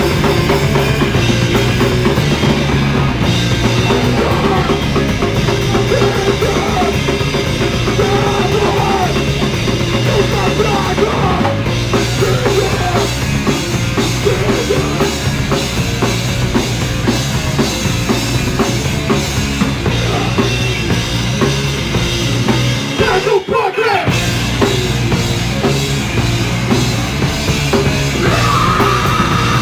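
A punk band playing live: drum kit, bass and distorted guitar, recorded on a phone. The band stops for a split second about three-quarters of the way through, then comes straight back in.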